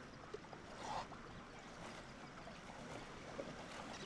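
Faint water ambience: a low, steady stream-like trickle with a few small clicks.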